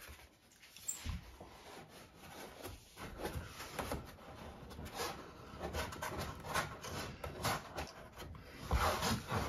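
Interlocking foam floor-mat pieces being pressed and slid together by hand against a plastic boat hull: irregular rubbing and scuffing with scattered light knocks as the jigsaw edges are worked into each other.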